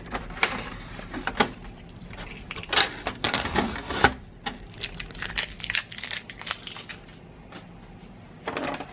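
Hands handling a new inkjet printer and its packing: a string of sharp plastic clicks and knocks mixed with short rustles, busiest about three seconds in.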